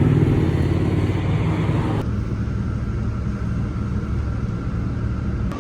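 Steady low rumble like a moving vehicle's road and engine noise, which changes abruptly about two seconds in.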